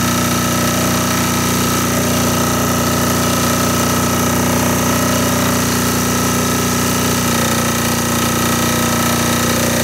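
Air-cooled diesel generator engine running steadily under load, with its diesel clatter; its sound shifts slightly about seven seconds in as the engine speed is adjusted to bring the output to 60 Hz.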